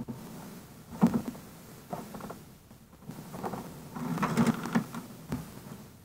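Handling noise at a desk: irregular rustling and shuffling in several short spells, with a short knock about five seconds in.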